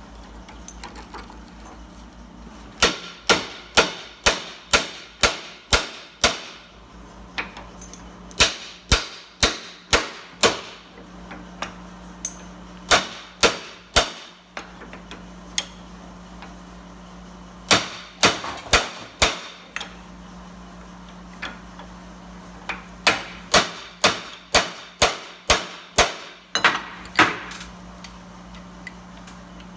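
Hammer striking a drive-shaft U-joint clamped in a vise, in five quick runs of sharp taps, about two to three a second, with pauses between the runs. The blows drive the U-joint apart; the joint is worn out, with no grease left in it.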